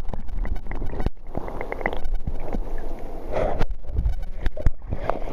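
Surf water heard through a microphone held underwater: a muffled, low rumbling churn of moving water with a few sharp clicks and knocks.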